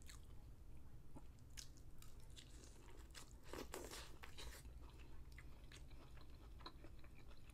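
Corn on the cob being bitten and chewed: faint crunching and wet mouth clicks, heaviest about three and a half to four seconds in.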